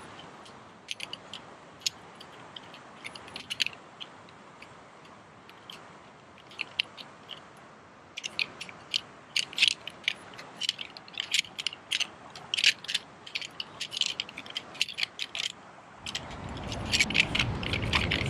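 Aluminium poles of a collapsible camp chair clicking and clacking against each other as the frame is pulled apart and bundled, the clatter getting busier about halfway through. A low rumble comes up near the end.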